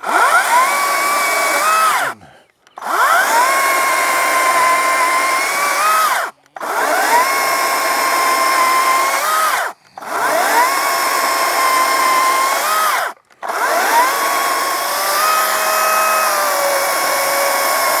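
CAT DG631 60V brushless cordless chainsaw cutting thin slices off a Norway maple limb. It runs in five spells of a few seconds each. Each spell starts with a rising whine as the motor spins up and then holds a steady whine while the chain cuts, with the saw stopping briefly between cuts.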